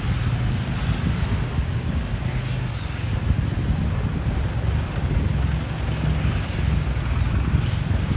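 Wind buffeting the microphone: a steady, fluttering low rumble with a faint hiss above it.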